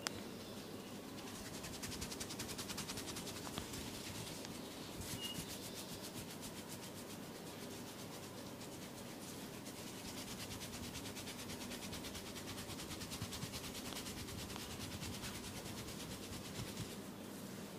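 Hands rubbing quickly over oiled skin in a fast, even run of massage strokes, starting about a second in and stopping near the end.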